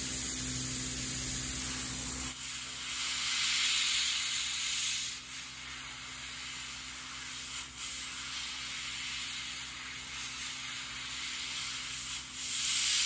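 Airbrush spraying thinned paint: a steady high hiss of air that dips briefly and swells again a few times. A low hum underneath stops about two seconds in.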